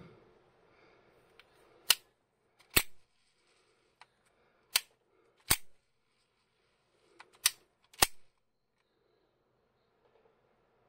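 Shimano Force Master 800 electric reel's clutch being thrown into free spool and re-engaged, three times over: three pairs of sharp mechanical clacks, the second of each pair trailing off briefly.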